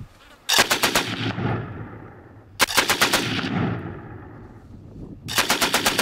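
Automatic gunfire: three short bursts of rapid shots, about eight or nine a second, each followed by an echo. One burst comes shortly after the start, one about halfway, and one near the end.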